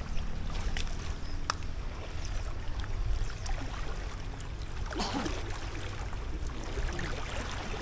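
Water sloshing and trickling around people moving in water, over a steady low rumble, with a louder splash about five seconds in.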